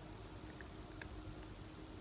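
Faint mouth sounds of someone finishing a mouthful of jalapeño cheddar cheese puffs: a few soft clicks over a low steady hum.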